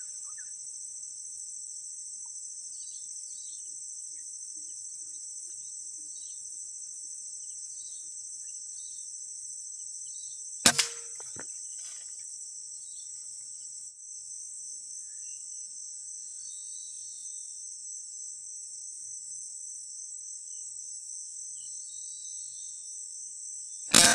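Two sharp air rifle shots, one about ten seconds in and another at the very end, over a steady high-pitched drone of insects.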